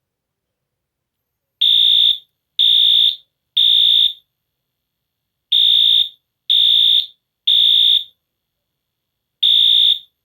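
Wheelock AS fire alarm horn sounding a loud, high, steady electronic tone in the temporal-3 evacuation pattern. It gives three half-second beeps about a second apart, pauses, then three more, starting about a second and a half in; a third group begins near the end.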